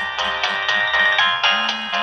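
Nokia 6080 mobile phone polyphonic ringtone playing a quick synthesized melody, about four notes a second, over a low bass line.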